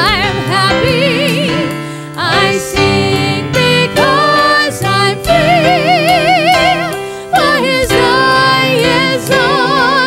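Gospel solo singing with piano accompaniment: long held notes with a wide vibrato over sustained chords.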